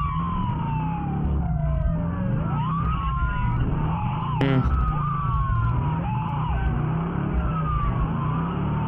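Several police sirens wailing at once, their overlapping tones rising and falling out of step, over a steady low engine rumble. A brief sharp burst cuts in about four and a half seconds in.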